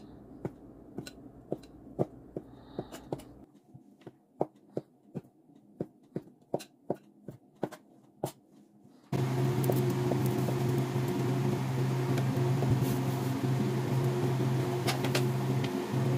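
Kitchen knife chopping through hotdog slices onto a wooden cutting board, about two to three sharp clicks a second. About nine seconds in, a louder steady machine hum cuts in suddenly and stays, with an occasional click over it.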